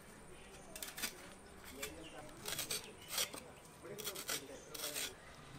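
Knife blade scraping and shaving the skin off a raw tuber by hand, in a series of short, irregular strokes, some coming in quick pairs.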